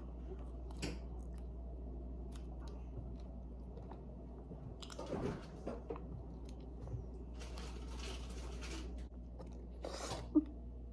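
A child's quiet mouth sounds as she sucks and bites at a soft lychee pudding ball: brief wet squishes and slurps about five seconds in, a longer sucking hiss a little later, and another short squish near the end as the pudding gives way.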